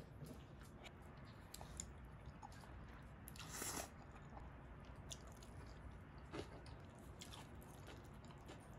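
Quiet eating sounds: chewing black-bean instant noodles, with faint clicks of wooden chopsticks and a spoon against the plate. One brief louder sound comes a little past the middle.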